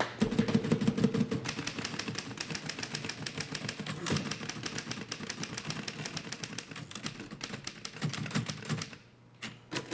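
Manual office typewriters being typed on: a fast, steady run of keystroke clacks that breaks off about nine seconds in, leaving only a few scattered clicks.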